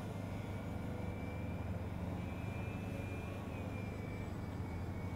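Twin electric motors and propellers of a Dynam Grand Cruiser RC model plane whining faintly in flight, the pitch dipping slightly about three and a half seconds in, over a steady low rumble.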